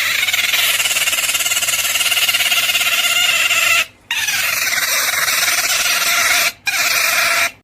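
Beaver squealing: long, high, fluttering whining cries, broken by short pauses about four seconds in and again near the end.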